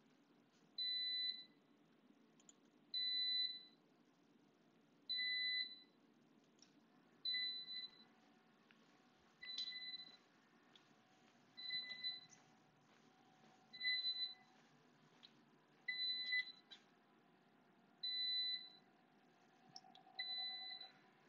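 Electronic beeper of the antenna pattern measurement system, giving short high beeps about every two seconds while the acquisition runs, with faint clicks between the beeps.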